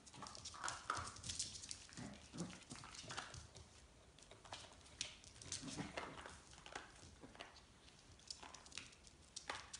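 Puppies and their mother dog play-fighting on a tiled floor: claws clicking and scrabbling on the tiles, with a few short growling sounds in between.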